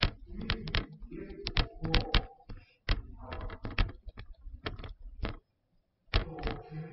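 A stylus tapping on a tablet screen during handwriting: irregular sharp clicks in quick runs, with a pause of about a second near the end.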